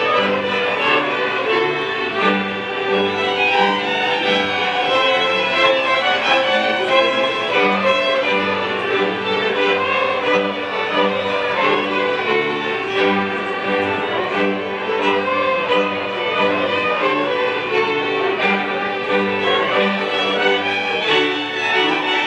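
A large ensemble of fiddles with a bowed bass fiddle playing Polish Górale highlander folk music, the bass pulsing in a steady rhythm under the fiddle melody.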